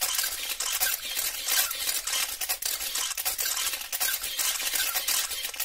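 Dense, uneven scratchy crackling noise with no clear tone, most of it high-pitched and flickering throughout.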